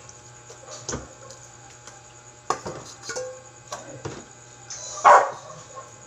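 A metal spoon clinking and scraping in a stainless steel basin as pet food is mixed, with a few light clinks, then a dog barks once a little after five seconds in, the loudest sound.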